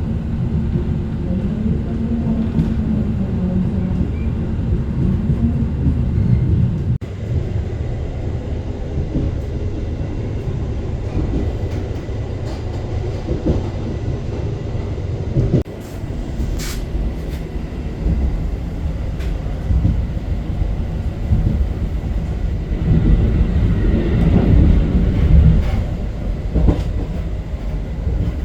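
Diesel-hauled passenger train running, a continuous low rumble with a steady drone in the first few seconds. The sound changes abruptly twice, about seven and about fifteen seconds in.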